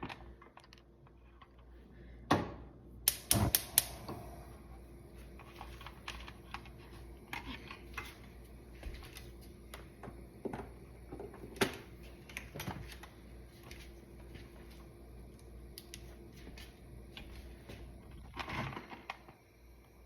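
Irregular clicks and knocks of kitchen utensils and dishes being handled: a few sharp knocks about two to three and a half seconds in and one near the middle, with softer taps between.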